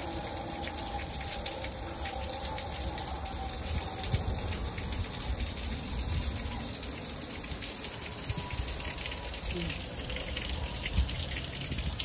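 Steady rush of water from a waterfall that is mostly frozen over, still running behind and under its ice.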